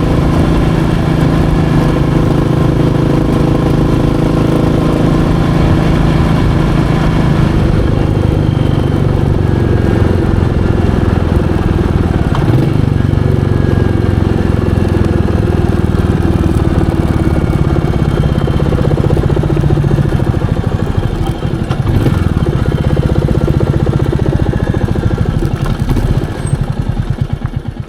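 Royal Enfield Meteor 350's single-cylinder engine running steadily while riding, its pitch shifting a little with throttle changes partway through. The sound fades out near the end.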